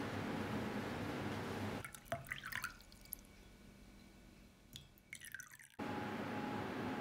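Water poured from a glass carafe into a ceramic mug, close to the microphone: splashes and drips about two seconds in and again near five seconds, with quiet between. Steady room hum and murmur of the coffee shop before and after.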